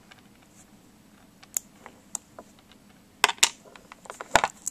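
Zen Magnets, small neodymium ball magnets, clicking as a few are grabbed and snap onto one another: several sharp, irregular clicks, louder and closer together in the second half.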